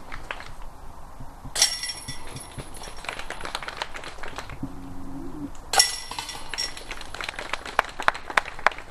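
Two putted discs strike the chains of a disc golf basket about four seconds apart. Each hit sets the metal chains jingling and rattling for a couple of seconds, and a few sharper chain clinks follow near the end.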